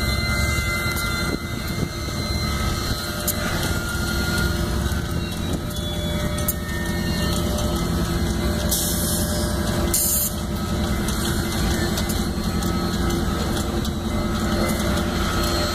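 Steel wheels of passing yellow Union Pacific passenger cars rolling along the rails: a steady rumble with a few faint held squealing tones.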